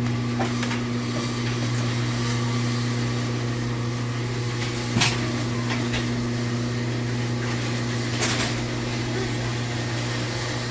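An electric motor humming steadily at one even pitch, with a couple of faint clicks about five and eight seconds in.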